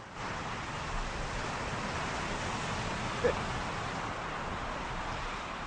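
Ocean surf: a steady rush of breaking waves that cuts in suddenly, with one brief sharp sound about three seconds in.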